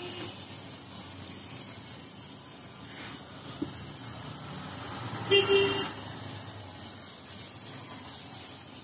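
Corded electric hair clippers running steadily while shaving a child's head. A brief voice-like sound cuts in about five seconds in.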